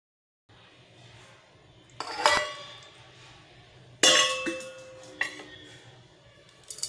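Metal pressure cooker clanking: two sharp knocks that ring on, the second the louder, then two lighter clinks.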